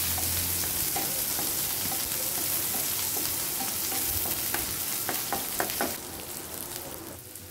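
Chopped onions and curry leaves sizzling in hot oil in a non-stick frying pan while being stirred with a wooden spatula; a few light scrapes of the spatula come about two-thirds of the way through, and the sizzle falls quieter near the end.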